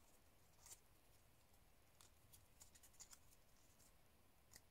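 Near silence with faint, scattered crinkles of paper being pinched and pressed into shape between fingers.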